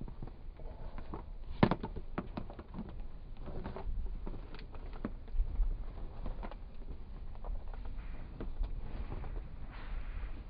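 Handling noise of a phone against its microphone: irregular knocks, clicks and rubbing, the sharpest about one and a half seconds in, over a low rumble.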